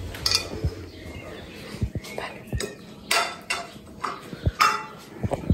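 Footsteps and handling knocks of a phone carried while walking, with a few light clinks and scrapes, irregular and uneven.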